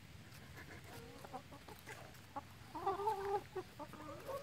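Chickens clucking softly while feeding on watermelon, with one louder, wavering call about three seconds in.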